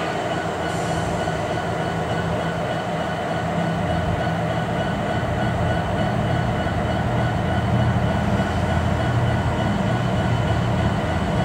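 Diesel locomotive engines running steadily, growing gradually louder as the tank train begins to roll, over the rumble of the rail cars.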